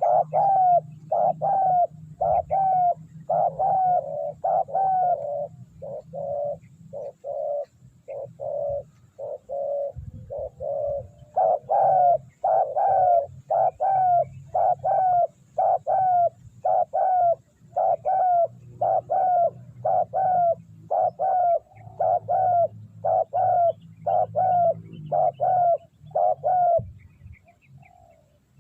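Spotted dove calling: a long run of short coos, about two a second, that stops shortly before the end.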